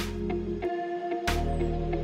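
Background music with a slow, steady beat over a deep bass note and held tones.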